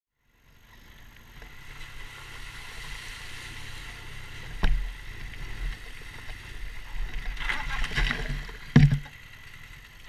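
BMW R1200GSA boxer-twin engine running low as the motorcycle wades through a rocky river, with water rushing and splashing around it. A sharp knock comes about halfway through, then a flurry of splashing and a loud clunk near the end as the bike lurches over.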